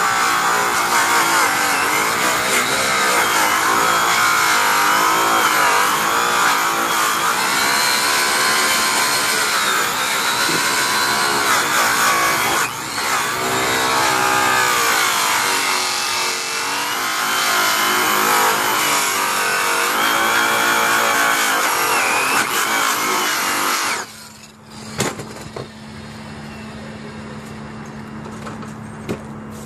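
Electric rotary polisher with a white buffing wheel loaded with green aluminum oxide compound, running at high speed against an aluminum truck wheel rim on the finishing pass. Its whine rises and falls continuously. The whine cuts off suddenly about six seconds before the end, followed by a single knock and a quieter steady low hum.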